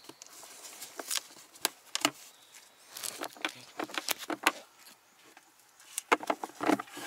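Plastic clicks and knocks from a Kia Morning's passenger-side glove box as a gloved hand handles and unclips it, in several irregular clusters of sharp taps with handling rustle between them.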